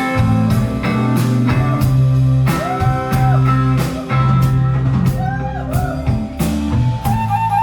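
Band playing a song live: guitar over sustained bass notes and a steady drum beat.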